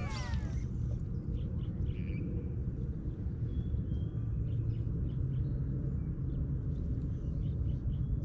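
Steady low outdoor rumble with faint, short bird chirps now and then. The tail of the background music slides down in pitch and fades out in the first half-second.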